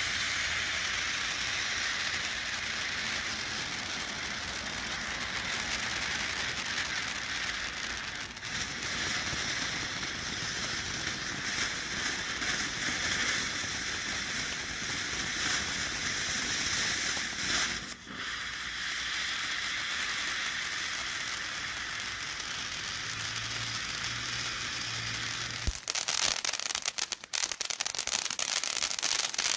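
Sky Bacon American Forever fountain firework spraying sparks with a steady hiss. About 26 s in it changes to a dense crackling.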